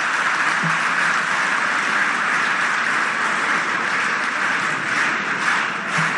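Large crowd applauding steadily and densely, greeting a speaker just invited to the podium; near the end it begins to thin into separate claps.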